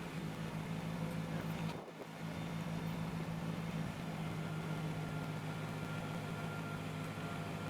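Kubota BX sub-compact tractor's three-cylinder diesel engine running steadily at a constant speed, with a brief drop in level about two seconds in.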